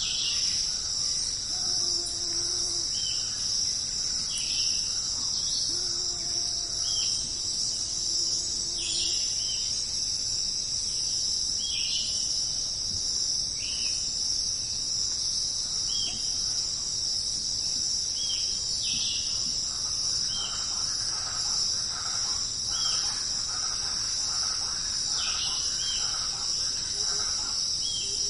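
Steady high-pitched chorus of jungle insects, with short downward chirps from another animal repeating every second or two over it.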